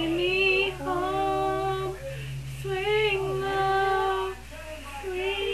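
A young girl singing alone without accompaniment, in a few long held notes.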